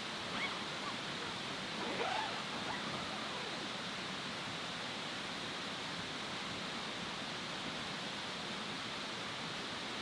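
A steady, even hiss with a few faint, short chirps in the first two seconds.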